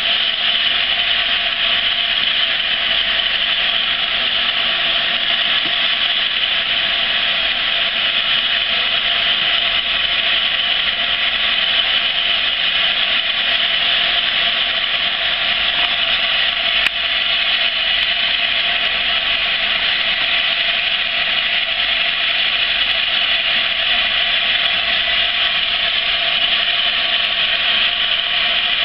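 LNER A4 class steam locomotive 60019 Bittern, standing, letting off steam in a loud, steady hiss, with a brief dip about halfway through.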